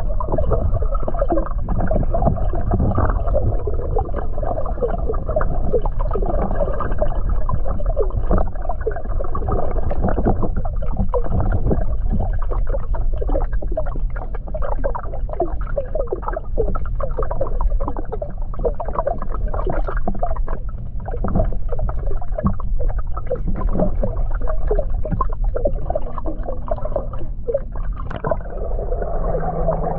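Muffled underwater noise from a submerged camera: a steady low rumble of water with many short bubbling pops.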